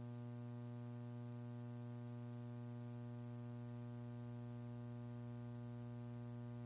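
Steady electrical mains hum with a buzzy row of overtones and faint hiss, running unchanged on the launch-control audio feed.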